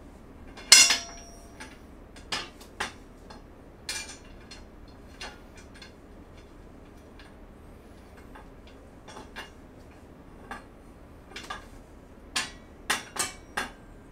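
Bolts and steel frame parts of a flat-pack dresser clinking and tapping as they are handled and fitted: a series of separate sharp metallic clicks, the loudest a ringing clank about a second in, with a quicker run of clicks near the end.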